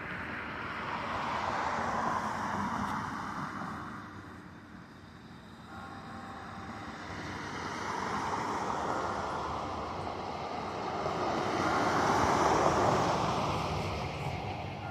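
Cars passing on a road, tyre and engine noise swelling and fading: one pass peaks about two seconds in, and a louder one builds to a peak near the end.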